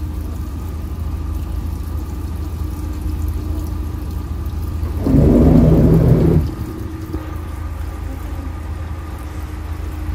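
Steady low rumble with a faint hum on a small fishing boat: an idling boat engine and wind on the microphone. About five seconds in, a louder rush of noise lasts about a second and a half.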